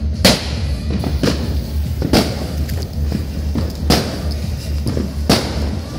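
Background music with a steady bass and a drum beat about once a second.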